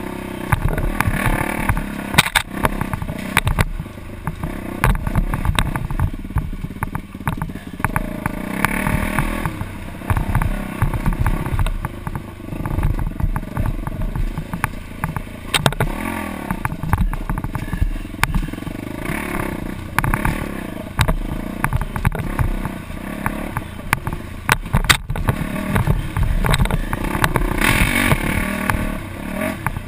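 Dirt bike engine rising and falling in revs as it rides a rough trail, heard through a helmet-mounted camera, with frequent knocks and buffeting on the microphone.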